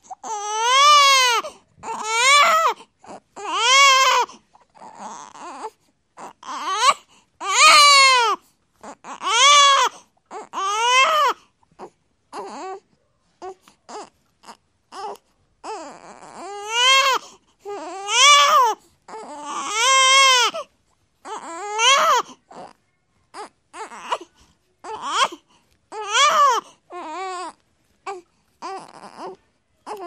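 Baby crying hard: a string of wails about every second or two, each rising and falling in pitch, with short catches of breath between them. In the last third the cries turn shorter and choppier.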